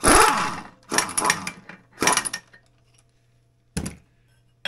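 Impact wrench on a snowmobile clutch puller, run in four short bursts about a second apart, the last one brief, with a sharp metallic click at the very end.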